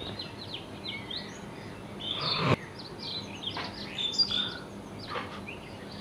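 Songbirds chirping: many short, high chirps and quick whistled glides, scattered and overlapping, with one louder call a little over two seconds in.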